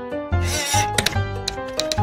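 Upbeat intro music: short held notes over a steady clicking beat, with a brief hiss about half a second in.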